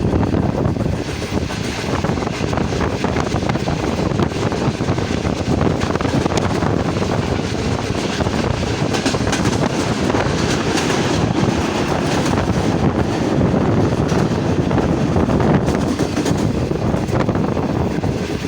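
Passenger train running, a steady rushing rumble mixed with wind buffeting the microphone.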